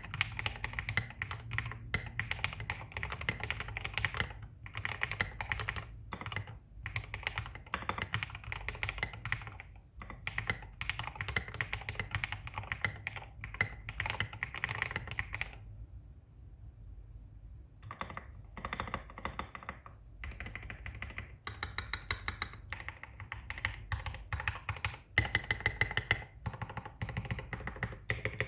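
Typing on a GMMK Pro mechanical keyboard with lubed KTT Red Wine linear switches on an aluminium plate and SA-profile keycaps: a dense, continuous run of keystrokes that pauses for about two seconds a little past the middle.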